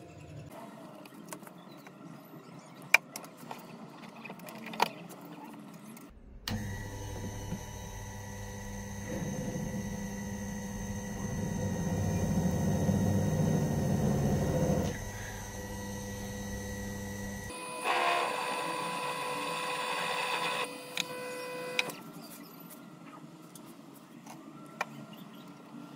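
Proxxon PF230 mill/drill head's motor starting about six seconds in and running with a steady whine. A 4.2 mm drill bit cuts into a small metal tool holder, and the sound grows louder under the load from about nine to fifteen seconds before the motor stops. A shorter, higher-pitched machine run follows, with a few sharp clicks of handling before and after.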